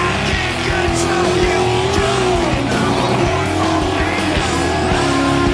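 Background music mixed with an off-road buggy's engine running hard at high revs, a held note that wavers slightly in pitch.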